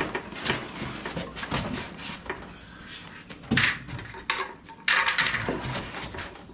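Packing material and loose parts being handled while unboxing a table saw: irregular rustling, knocks and clatters, loudest about three and a half and five seconds in.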